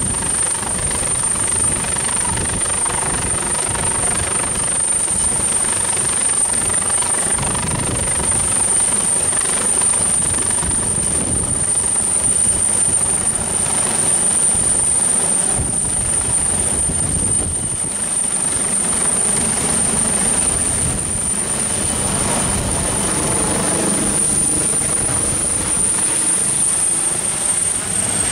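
AgustaWestland AW139 twin-turbine helicopter passing low and close overhead: rapid rotor chop with a steady high-pitched whine over it. Near the end the whine rises slightly and then drops as the helicopter turns away.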